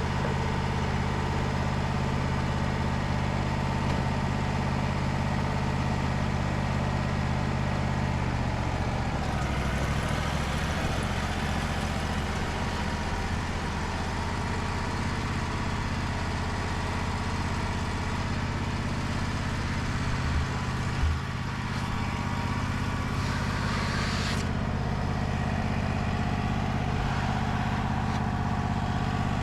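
Wood-Mizer LT35 band sawmill running steadily with its engine note held even. About eight seconds in the engine's tone shifts and a higher hiss joins, cutting off suddenly about 24 seconds in, with two short knocks just before.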